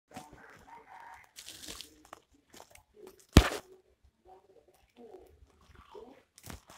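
Crinkling and rustling of woven plastic sacks of dried paddy being handled and folded shut, with one sharp knock about halfway through, the loudest sound.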